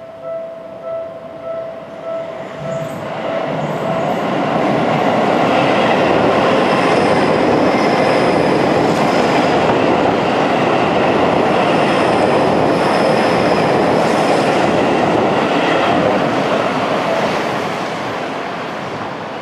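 A level-crossing warning bell rings in an even, quick beat, then a Seibu 30000 series electric train passes over the crossing. Its running noise swells over the bell from about three seconds in, holds, and fades away near the end.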